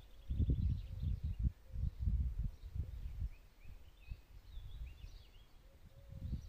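Wind buffeting the microphone in uneven gusts, with birds chirping faintly in the background.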